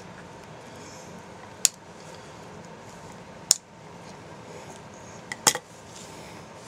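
Needle-nose pliers clicking against a small black plastic jig part, four sharp clicks a second or two apart, the last two close together, over a faint steady hiss.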